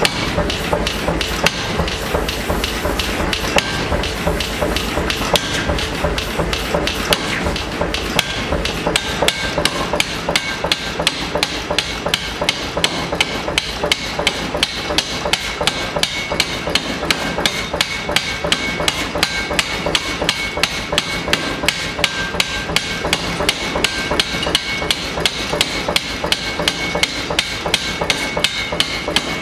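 Mechanical power hammer's ram striking a spring-loaded forging die on a red-hot billet, in a steady run of rapid metal-on-metal blows. The newly made die is being tested.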